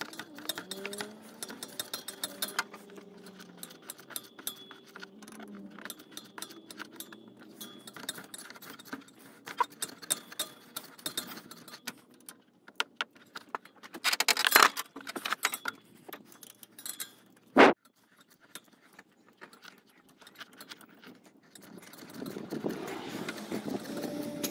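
Irregular metallic clicking and clinking of a ratchet and socket on the serpentine belt tensioner bolt as it is run down by hand before torquing. There is a louder flurry of clicks about halfway through, then a single sharp metal knock about three-quarters of the way in, and a soft rustle of handling near the end.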